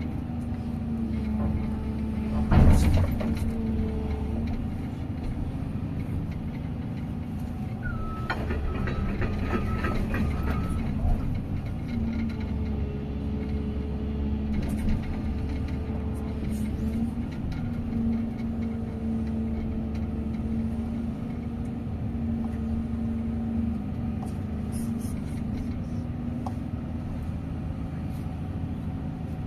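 Diesel engine of heavy earthmoving machinery running under load, heard from inside the mesh-guarded cab, its steady drone shifting a little in pitch as it works. There is a single loud clank about three seconds in, and a reversing alarm beeps for a few seconds around the middle.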